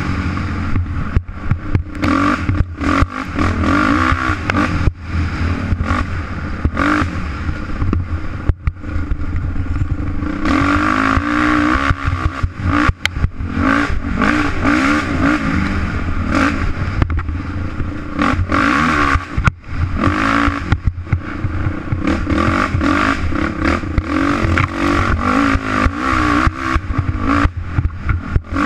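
Dirt bike engine revving up and down as it is ridden hard along a bumpy dirt trail, its pitch rising and falling again and again. Frequent knocks and clatter run through it.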